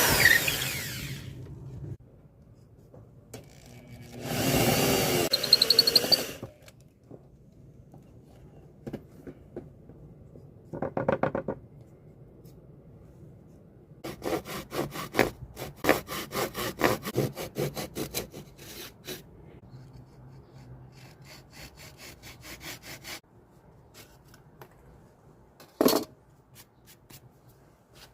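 Workshop tool work: two short bursts of a power tool running, then about nine seconds of quick, repeated scraping strokes, and one sharp knock near the end.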